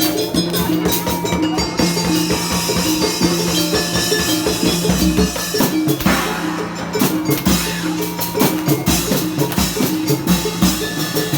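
Obrog music, the Indramayu street ensemble: drums and percussion playing a busy rhythm under a short repeating melodic figure.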